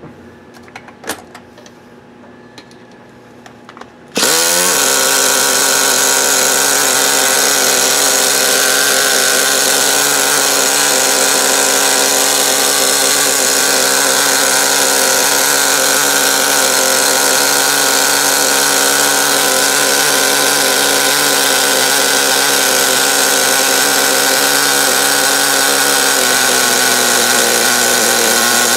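O.S. CV-R .18 two-stroke nitro glow engine catching about four seconds in, revving up and then running loud and steady at high revs, held open on the throttle because its idle setting is off. Near the end its note shifts slightly as the carburettor is adjusted.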